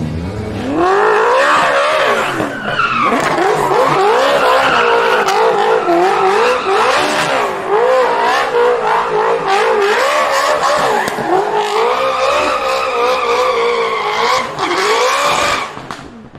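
Ferrari 458 V8 in a Toyota GT86 drift car, revving hard at high rpm with quick rises and dips in pitch as the car drifts, tyres squealing and skidding. The sound fades away near the end.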